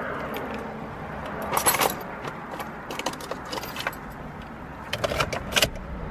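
A bunch of car keys jangling and clicking as the key is fitted into the ignition lock and turned, in several short bursts, loudest about a second and a half in and again near the end.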